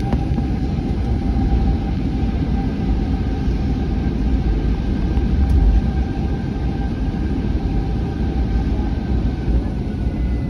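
Cabin noise inside an Airbus A321 rolling onto the runway at taxi power: a steady low rumble with a few faint steady whining engine tones running through it.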